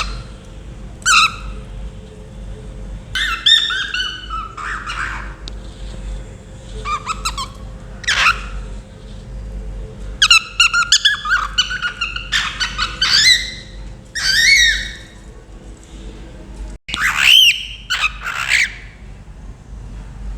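A cockatiel chirping and whistling in repeated bursts of calls with short pauses between them, some notes sliding up and down in pitch.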